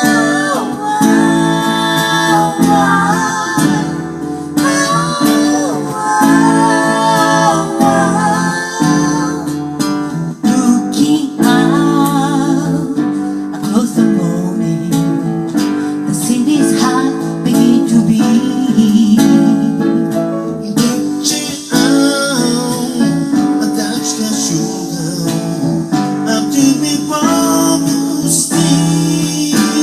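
Music: a song with guitar and a singing voice, playing without a break.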